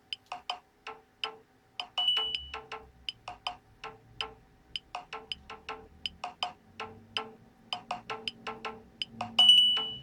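Nokia 6131 mobile phone ringtone playing: a rapid run of short, clicky electronic notes, about four a second, with a held high beep about two seconds in and a louder one near the end.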